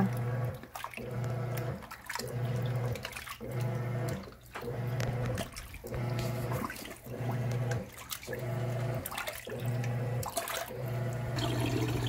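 Giantex portable washing machine agitating a load: the wash motor hums in stop-start runs of about a second with brief pauses between, while the water and clothes slosh in the tub. Near the end the sound turns into a steady hum as the machine starts to drain.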